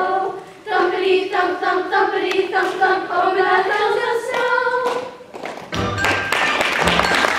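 A children's chorus sings the closing phrases of a song, ending about five seconds in. Audience applause breaks out about a second later.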